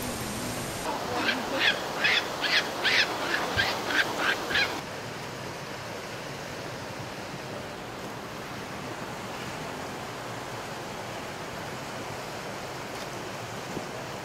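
Steady outdoor rushing noise, with a quick run of about ten short, high-pitched chirps, about three a second, during the first few seconds; after that only the rushing noise goes on.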